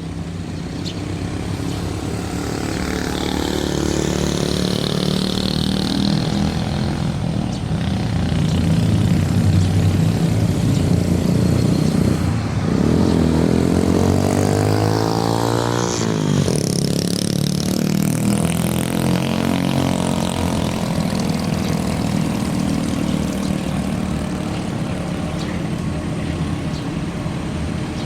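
Engines running steadily, with one vehicle passing close between about 12 and 17 seconds in, its pitch rising as it nears and dropping as it goes by.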